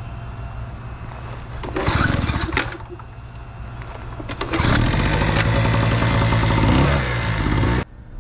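Small portable generator being pull-started: a short loud burst about two seconds in, then it catches and runs loudly from about four and a half seconds in before cutting off suddenly near the end.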